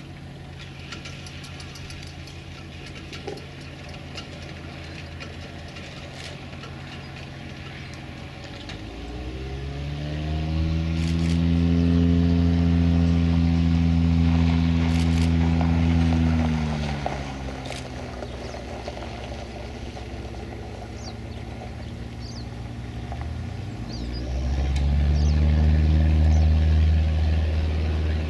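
Cessna 172 Skyhawk's four-cylinder piston engine and propeller idling, then throttled up to high power for several seconds and eased back to idle, and throttled up again near the end.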